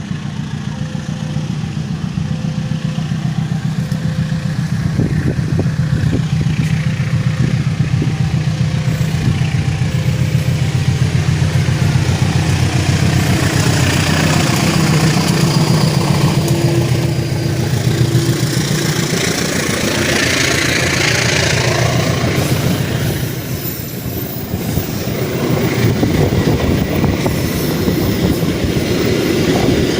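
CC206 diesel-electric locomotive with its train, the engine running with a loud, steady low drone as it passes, and rushing wheel-and-rail noise swelling in the middle.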